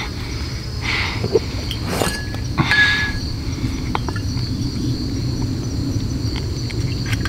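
Insects chirping steadily, crickets among them. A few brief rustles and light clinks from a glass sake bottle being handled come through about 1, 2 and 3 seconds in, with a faint tick near the middle.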